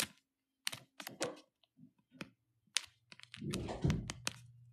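Scattered light clicks and taps, then a short rustling noise about three and a half seconds in, over a faint low hum.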